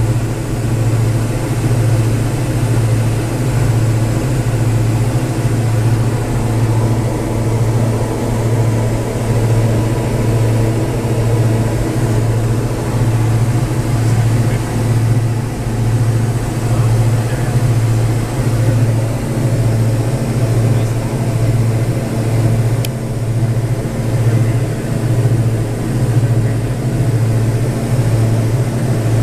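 Diamond DA42 Twin Star's two diesel engines and propellers droning steadily in cruise, heard inside the cabin, with a slow pulsing beat a little more often than once every two seconds. The beat comes from the two propellers running slightly out of sync, about 20 RPM apart (2220 and 2240 RPM).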